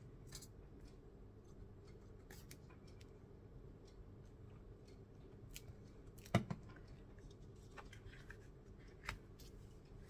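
Small taps and clicks from craft pieces being handled on a cutting mat, with a sharp double knock about six seconds in as a plastic glue bottle is set down.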